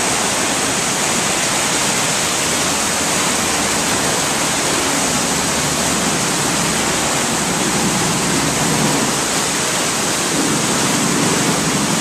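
Loud, steady rushing of white water cascading over rocks in a river, a waterfall-like noise.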